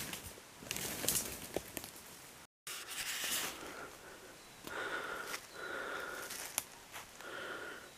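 Footsteps crunching through dry leaf litter and snapping sticks on a forest floor. Then, after a cut, a person breathing hard near the microphone, about three slow breaths with a faint whistle in them, out of breath after dragging a deer.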